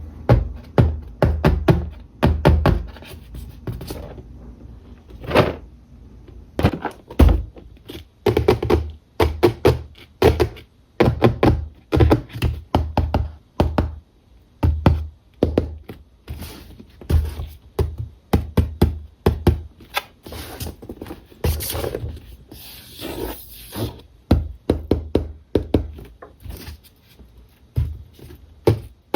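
Toy cars and their plastic packaging being handled close up: a run of irregular thunks, taps and knocks, several a second.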